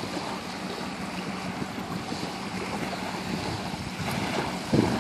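Small waves lapping and breaking on a sandy shoreline, with wind on the microphone and a few louder gusts near the end.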